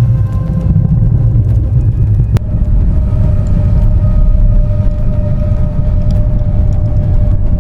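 A deep, steady rumble with a faint held tone above it, and a single sharp click about two and a half seconds in.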